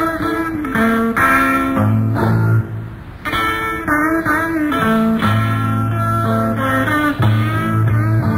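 Live 1960s psychedelic rock band playing an instrumental guitar passage: a lead guitar plays bending, sliding notes over held bass notes, with no singing.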